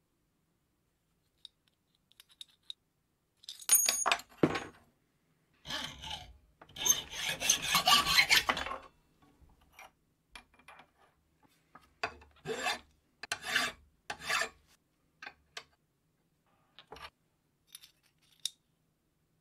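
Steel parts of a spokeshave scraping and rubbing against each other as a flat blade piece is worked against the steel square-tube body, in several short bursts with small metallic clicks between them.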